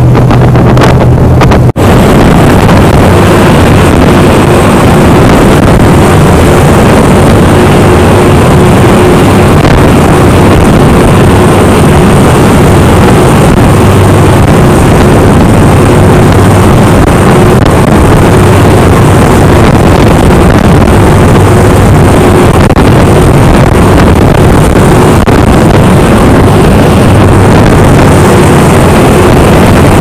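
Boat engine running steadily under way, with wind rushing across the microphone. The sound drops out for an instant about two seconds in.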